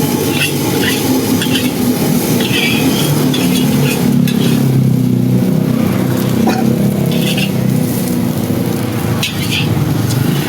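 Sausage-and-squid fried rice being stir-fried in a wok: a metal spatula scrapes and clinks against the pan again and again over the sizzle of frying and a steady low rumble.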